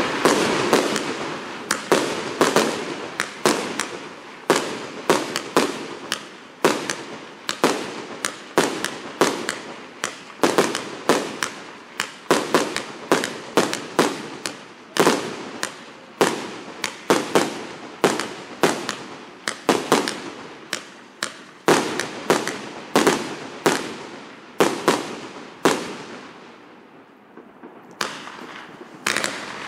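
A 100-shot, 1.2-inch fireworks cake firing shot after shot, about two to three sharp shots and bursts a second. There is a short lull near the end before the firing picks up again.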